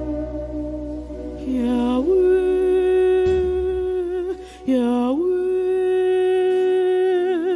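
Worship music: a wordless hummed or sung vocal line holds long notes, each sliding up from a lower pitch, about every three seconds. A deep sustained low note underneath drops out about three seconds in.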